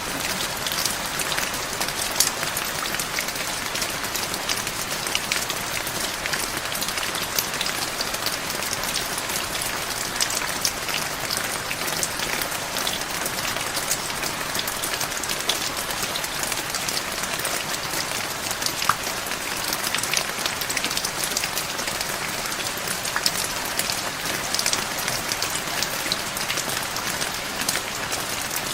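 Heavy rain falling steadily: an even hiss, with the sharp ticks of single drops striking close by throughout.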